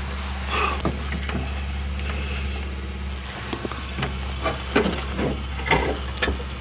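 A steady low hum with a few light knocks and clicks scattered through, and some brief faint sounds near the middle and end.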